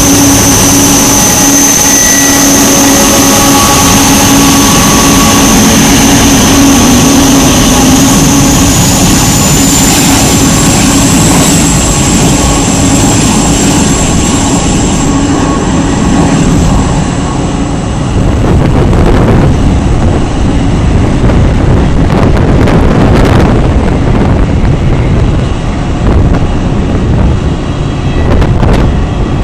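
Korean Air Cargo Boeing 747-400F's four Pratt & Whitney PW4056 turbofans at taxi power, a high turbine whine over a low hum, fading about halfway through as the jet taxies away. In the second half, wind buffeting the microphone makes a low gusty rumble.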